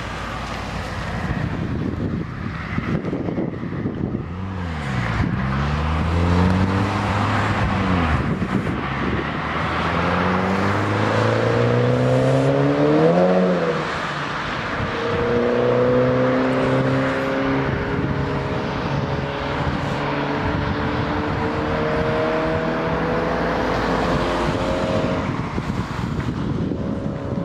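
Tuned Saab 9-3 Aero's engine pulling hard, its note climbing through one gear, dropping sharply at a gear change about halfway through, then climbing again more slowly through the next gear. Wind noise on the microphone runs underneath.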